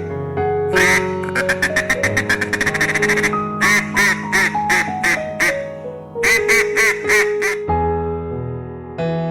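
An animal calling in short, sharp calls: a rapid run of about a dozen a second starting about a second in, then two bursts of several slower calls, over background music with long held notes.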